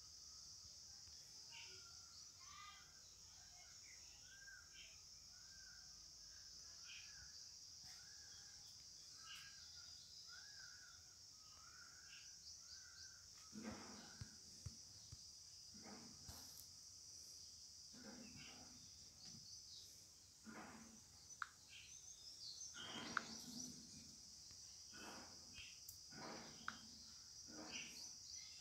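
Faint outdoor background: a steady high-pitched insect chorus, with a bird calling over and over at an even pace during the first half. After that come scattered, slightly louder short animal calls.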